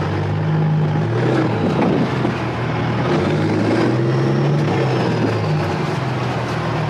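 Heavy diesel engine running steadily, a low even hum with small shifts in pitch.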